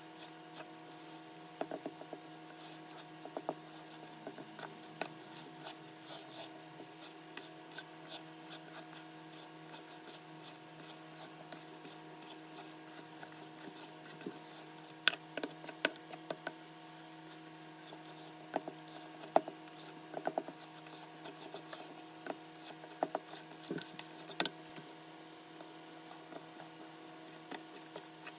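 Light scraping, rubbing and tapping of baking utensils against a mixing bowl, in irregular small strokes with a few sharper taps, over a steady electrical hum.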